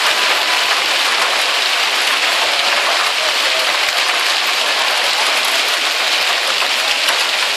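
Hail and heavy rain falling on tarmac and parked cars: a dense, steady hiss with a constant scatter of short knocks from hailstones striking.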